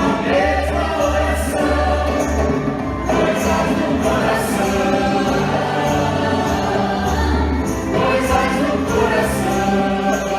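Music: a choir singing sustained chords over band accompaniment, with a steady bass line and light cymbal strokes.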